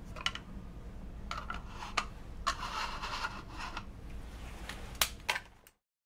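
Gloved hands handling plastic Petri dishes and a micropipette: several small clicks and taps and a longer rustle about halfway, over a low steady hum. The sound cuts off abruptly near the end.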